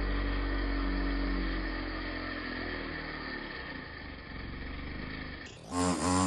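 An engine running steadily at low revs, slowly fading. Near the end a chainsaw starts cutting loudly, its pitch wavering up and down under load.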